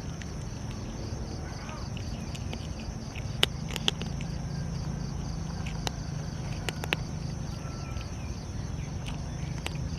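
A cat chewing its food, heard as scattered sharp clicks and crunches, over a steady insect trill and a low hum.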